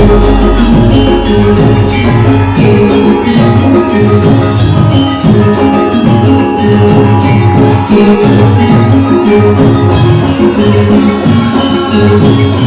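Javanese gamelan-style music accompanying a lengger dance: a repeating low melodic pattern with regular, sharp jingling percussion strokes over a steady beat.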